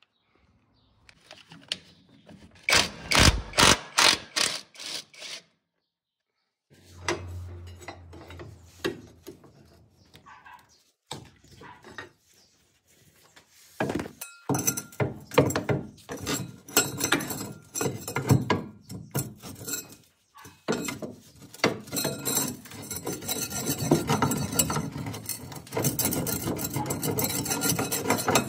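Hand tools on the pickup's rear shock absorber mounting bolts: a ratchet wrench clicking in short, even runs, mixed with metal clinks and knocks, broken by brief silent gaps.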